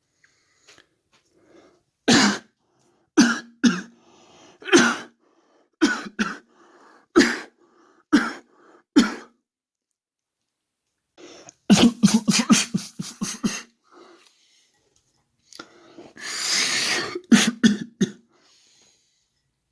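A person coughing: about eight single coughs roughly a second apart, then a rapid fit of coughing, a long breathy rasp, and a few more coughs near the end.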